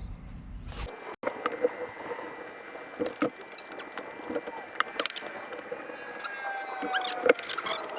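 Hand tools working on an ATV engine's top end: scattered clicks, knocks and metal clinks as the parts are unbolted and handled.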